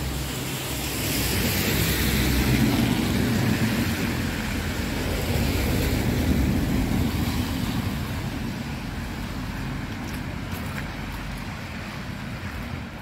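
Traffic on a wet, slushy street: tyre hiss of a passing vehicle swelling over several seconds and slowly fading, with wind rumbling on the microphone.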